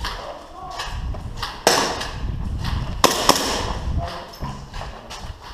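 Movement noise from an airsoft player: rustling gear and thuds, with a few sharp snaps or knocks, one at about a second and a half in and two close together about three seconds in.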